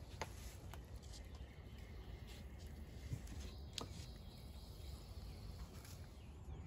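Faint handling sounds as a rusty steel hatchet head is lifted out of a plastic-lined vinegar soak: a few short clicks and ticks over a low, steady outdoor background.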